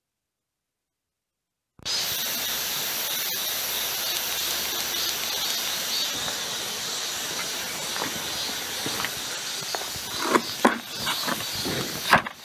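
Steady outdoor hiss that sets in after about two seconds of silence, then a few short knocks and scrapes near the end as a plastic bucket is picked up and handled on loose dirt and stones.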